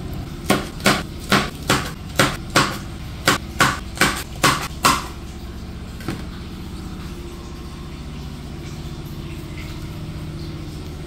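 Kitchen knife chopping winged beans on a wooden cutting board: about eleven sharp knocks at two to three a second, stopping about five seconds in, with one faint knock a second later. A steady low hum runs underneath.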